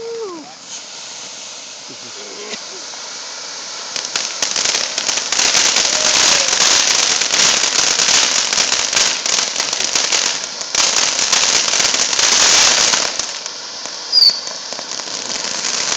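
Firework going off with a dense crackling hiss that builds about four seconds in, runs for roughly nine seconds with a brief dip, then dies down. A short sharp pop follows near the end.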